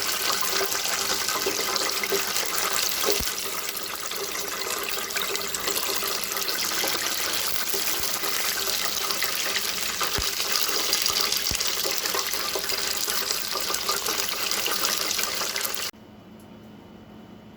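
Steady hiss of water running from a kitchen tap, with a few faint clicks; it cuts off abruptly near the end.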